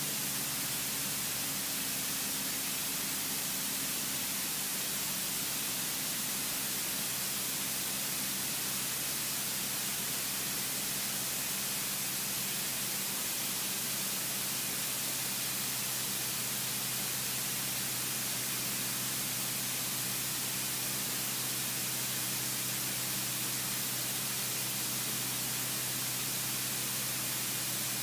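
Cabin noise of a single-engine light aircraft on approach: a steady rush of engine, propeller and airflow, with a low engine drone underneath. The drone drops slightly in pitch right at the start and shifts again about two-thirds of the way through.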